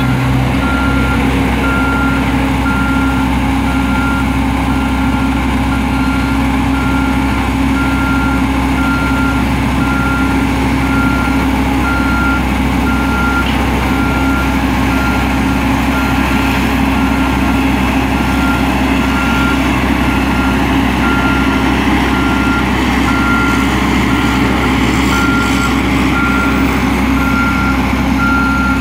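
Reversing alarm on a diesel construction machine, a single steady tone beeping about once a second, over the steady running of its engine.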